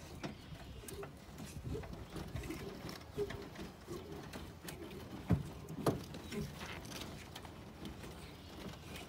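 Hand crank winding the roof-lift mechanism of a 1988 Coleman Columbia pop-up camper: an irregular run of mechanical clicks and creaks as the roof rises, with two louder knocks a little past halfway.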